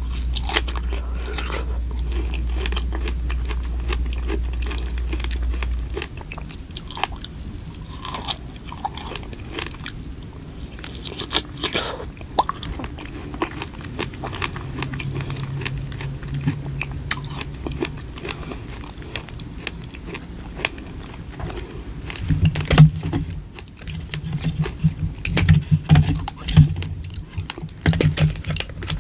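Close-miked biting and chewing of food, with many small crackles and clicks that grow louder and denser near the end. A low steady hum sits underneath and stops about six seconds in.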